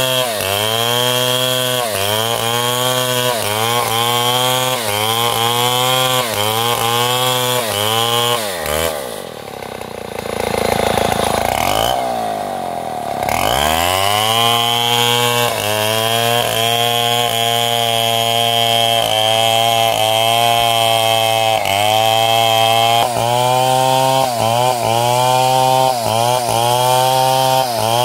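Powered saw machine cutting timber, its motor pitch dipping briefly about once a second as it takes load. About nine seconds in it slows right down for a few seconds, then speeds back up and keeps cutting with the same regular dips.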